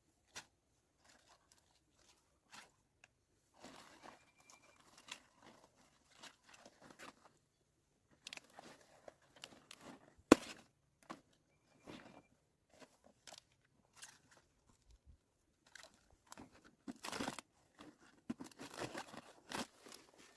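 Intermittent crunching and rustling with scattered sharp clicks, as of hands handling something crisp. A single sharp click about ten seconds in is the loudest sound, and a denser run of rustling comes near the end.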